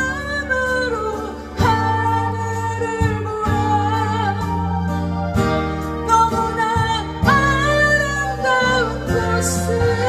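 A woman singing a slow Korean ballad to her own acoustic guitar, holding long wavering notes, with a short break in the line about a second and a half in.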